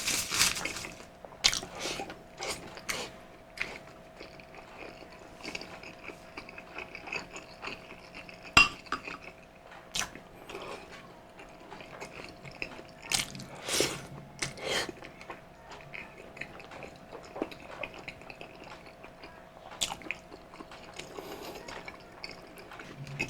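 Mukbang eating sounds: utensils clicking and clinking against dishware, with chewing, as scattered short clicks spread through a quiet stretch over a faint steady hum.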